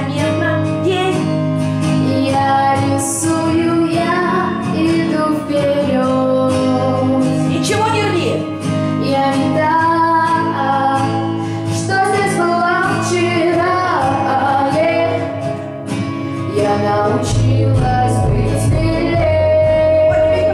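A teenage girl singing a pop song in Russian into a handheld microphone over instrumental accompaniment, with held and gliding notes. A deeper bass line comes in near the end.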